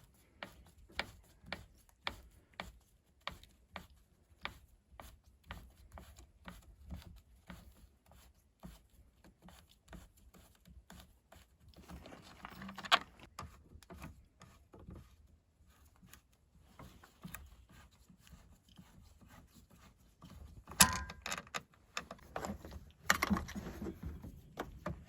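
Hand tools and loose parts being handled while a chainsaw is taken apart: a long run of light, evenly spaced clicks about two a second, then some scraping, a single sharp knock about two-thirds of the way through and more rattling of parts near the end.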